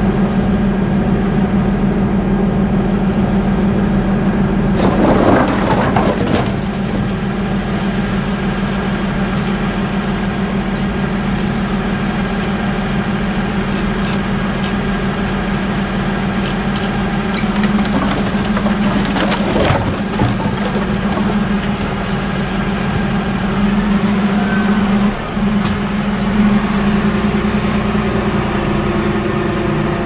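Fendt tractor's diesel engine running steadily while its front loader works, with a clatter of split firewood logs tumbling from the loader grab about five seconds in and again around twenty seconds.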